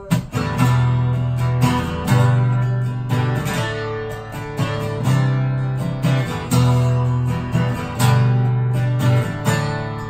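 Steel-string acoustic guitar strummed solo, chords struck every second or so and left ringing over a strong bass note.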